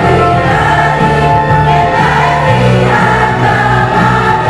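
A mixed choir of men and women singing together in held, sustained notes.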